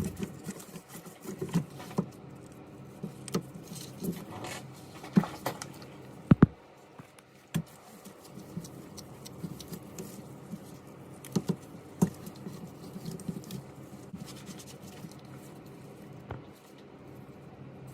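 Small hard clicks and taps at an irregular pace, typical of tools and small parts being handled while a phone is taken apart or put back together, with a few louder knocks about five and six seconds in.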